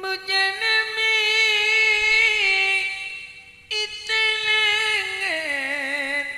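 A female singer of Madurese gending holding two long, wavering sung notes, with a short break about three seconds in; the second phrase steps down in pitch near the end.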